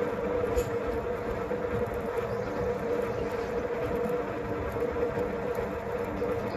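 Metal lathe running steadily: a constant mechanical hum with a steady mid-pitched tone and faint scattered ticks.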